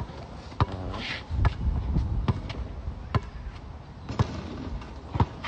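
Basketball being dribbled on an outdoor asphalt court: sharp bounces, about one a second.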